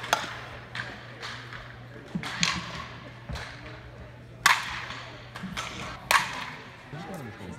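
Softball bat hitting pitched balls: four loud sharp cracks about every two seconds, with a few fainter hits between them, each ringing on in a large indoor hall.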